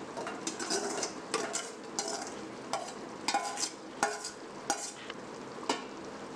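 A steel ladle scraping and clinking against a stainless-steel bowl as marinated mushrooms are pushed off it into a pot of cooking masala, over a steady sizzle from the pot. The scrapes come irregularly, every half second or so, and a couple near the middle ring briefly like metal.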